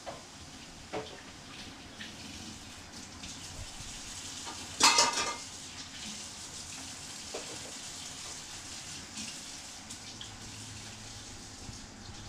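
Kitchenware being handled: a few light knocks, then a louder ringing clink and clatter of dishes about five seconds in.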